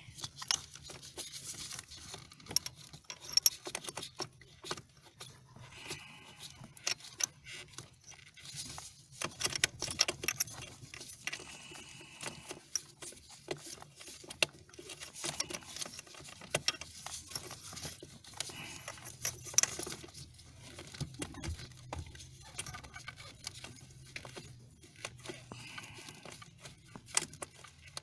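Irregular small clicks, ticks and rubbing of nitrile-gloved hands working a threaded brake light switch loose on the brake pedal bracket, the glove brushing close to the microphone, over a faint low steady hum.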